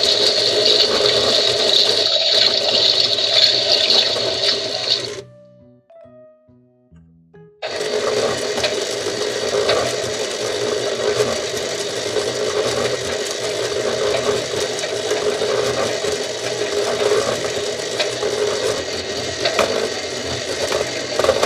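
Minnie Mouse toy washing machine running its wash cycle: a steady whirring, water-like sound effect that cuts out for about two seconds around five seconds in, then starts again and runs on.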